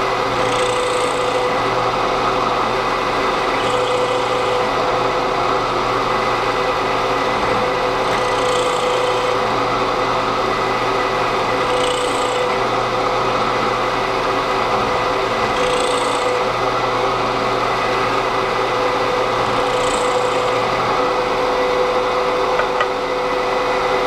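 Drill press running steadily while its bit is plunged into a wooden strip again and again, boring a row of shallow half-inch holes. Each plunge, about every four seconds, adds a brief higher scraping sound as the bit cuts the wood.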